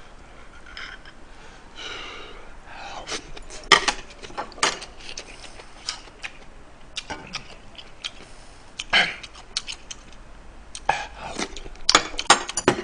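A man eating at a close microphone: irregular mouth sounds of chewing and smacking on spicy braised chicken stew, with scattered sharp clicks of a spoon against the pot and a steel bowl.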